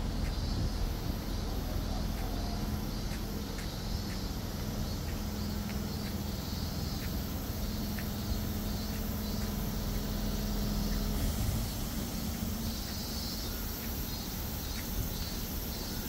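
Small truck's engine running at low speed, a steady low hum, with insects chirping in the background.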